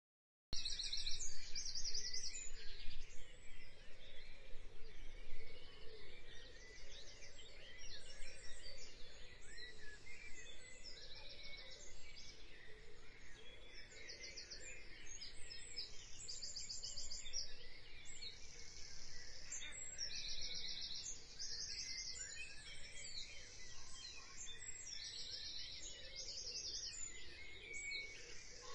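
Birds chirping, with many short calls and repeated fast pulsing trills, over a faint steady hiss of outdoor ambience. It starts abruptly about half a second in.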